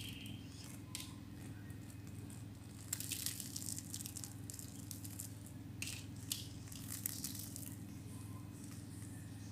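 Scattered clicks and brief crinkling rustles, a cluster about three seconds in and more around six to seven seconds, over a steady low hum.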